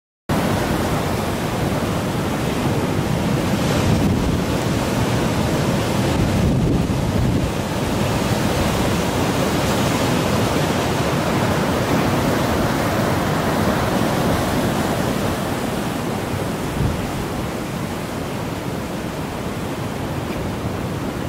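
Rough storm surf from an approaching typhoon, waves breaking and rushing in a steady roar, with strong wind buffeting the microphone.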